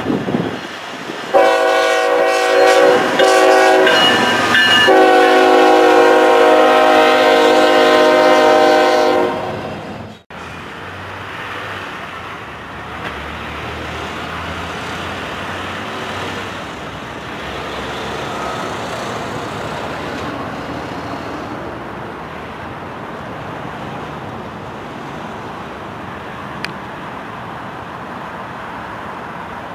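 Freight locomotive's multi-chime air horn sounding several blasts, the last held for about four seconds, as the train approaches. Afterwards only a steady, quieter background rumble remains.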